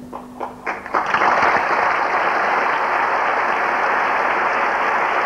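Audience applause breaking out at the end of the ballet: a few scattered claps, then within about a second a full, steady applause, over the last fading note of the music.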